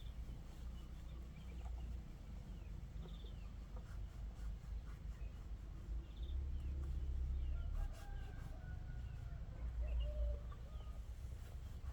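A rooster crowing once, about eight seconds in, among faint scattered chirps of small birds, over a steady low rumble.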